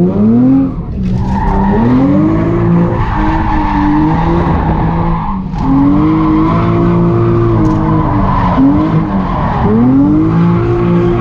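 Drift car sliding with its tires screeching, the engine revving up and falling back several times as the throttle is worked through the slide.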